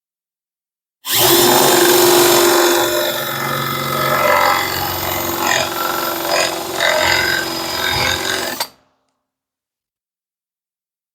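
Power drill boring into a wooden board with a 1 9/16-inch Forstner bit: a steady motor hum with the rasp of the bit cutting wood. It starts abruptly about a second in and stops near the end.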